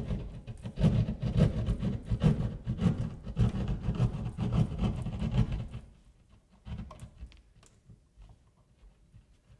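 Hand drywall saw cutting through drywall in quick, rhythmic back-and-forth strokes that stop about six seconds in, followed by a few faint knocks.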